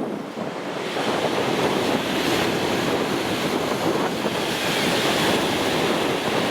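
Strong wind buffeting the microphone over a stormy sea with surf breaking. The rush grows louder about a second in and then holds steady.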